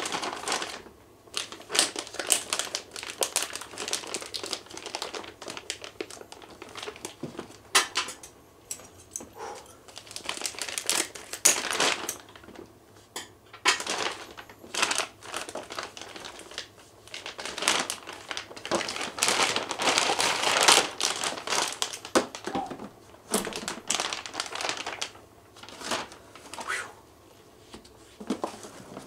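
Thin plastic bag crinkling and rustling in irregular bursts as it is pulled off a boxed battery backup unit by hand.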